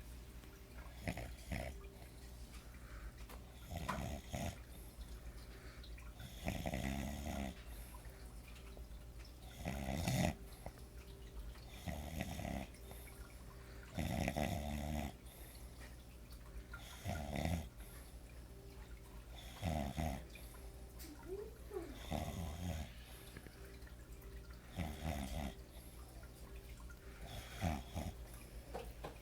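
A man snoring in his sleep, one snore about every two and a half seconds in an even rhythm.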